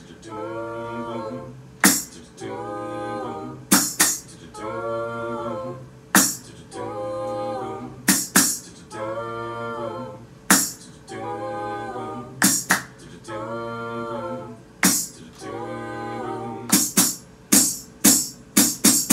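A small group of voices singing a cappella backing harmonies, with no lead vocal, in short chords about every two seconds. Sharp percussive hits fall between the phrases and bunch into a quick run near the end, where the singing stops.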